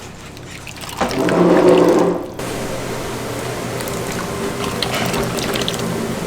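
Water running from a kitchen tap, growing louder about a second in and then running steadily, with a few light clinks.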